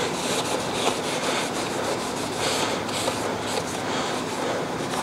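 Paper towels rubbing over the main bearings and caps of a Ford Model T engine block: a steady scratchy wiping made of many quick strokes, cleaning them up after the bearing fit.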